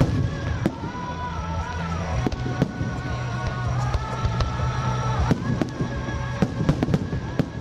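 Fireworks bursting overhead: a string of sharp bangs at irregular intervals, several close together near the end, with music playing underneath.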